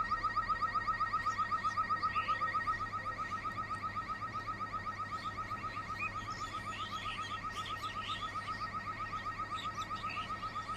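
Level-crossing electronic warning alarm sounding a rapid, evenly repeating beep, about six a second, the signal that a train is approaching.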